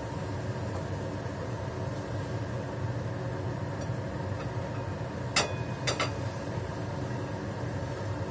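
Metal spatula striking a frying pan while stirring tofu. One sharp clank about five seconds in leaves a brief ring, then a quick double clink follows half a second later, over a steady mechanical hum.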